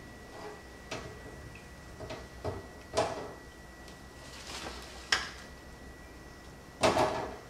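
Wire deep-fryer basket clanking against the stainless steel fryer as it is lifted out and tipped, with fried breaded pickles tumbling onto a paper-towel-lined metal pan. A scatter of separate knocks and rattles, the loudest near the end.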